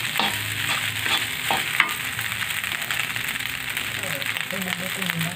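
Fried rice sizzling in a pan while a metal spatula stirs and scrapes it, knocking against the pan a few times in the first two seconds.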